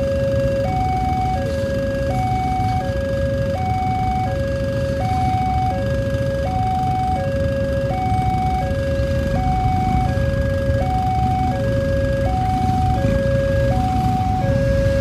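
Railway level-crossing warning alarm sounding a two-tone signal, a lower and a higher note alternating about every three quarters of a second, over the low rumble of a passenger train passing the crossing.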